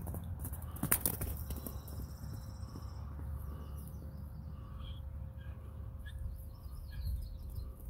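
Outdoor farmyard ambience: a steady low rumble of wind on the microphone, with birds chirping in short repeated phrases through the middle and a sharp knock about a second in.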